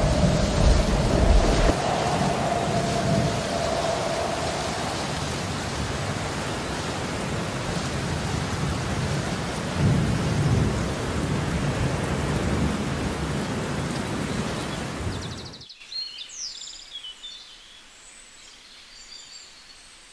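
Thunderstorm sound effect: steady heavy rain with low rolls of thunder at the start and again about ten seconds in. The storm cuts off suddenly about three-quarters of the way through, leaving faint high chirps.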